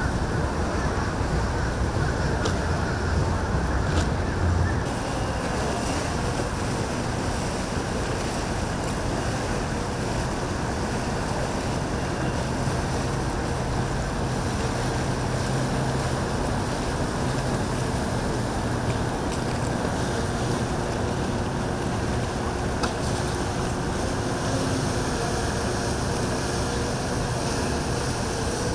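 Motorboat engines running, with waves washing and wind buffeting the microphone. The sound is steady, a little louder in the first few seconds.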